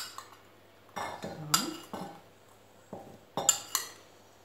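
A spoon clinking and scraping against a bowl as carrot pieces are spooned into a stoneware baking pan: sharp clinks in three short clusters, at the start, a second or so in, and again past the three-second mark.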